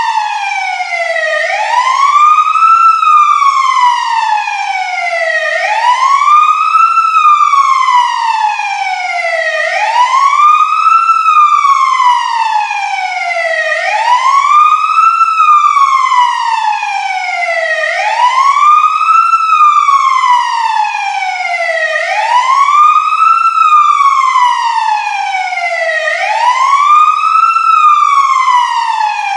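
Fire truck siren on a steady wail: its pitch sweeps up quickly and then slides slowly back down, about once every four seconds.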